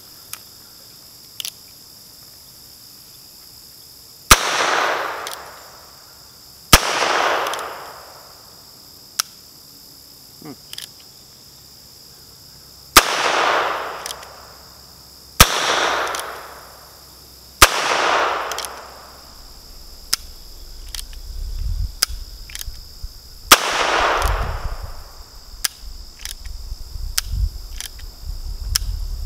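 Heritage Rough Rider single-action .22 LR revolver firing six shots at uneven intervals. Each is a sharp crack followed by an echo of about a second and a half, with fainter clicks between and after the shots. A steady insect chorus runs underneath.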